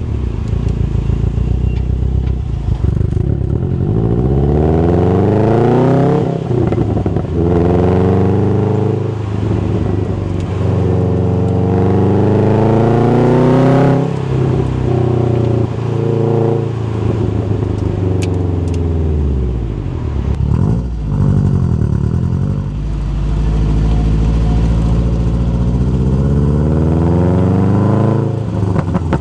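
Exhaust of a Subaru WRX STI's turbocharged flat-four through a factory performance muffler, pulling hard with the pitch climbing and then dropping suddenly at each upshift. Partway through, the revs fall away as it slows, then it builds again steadily.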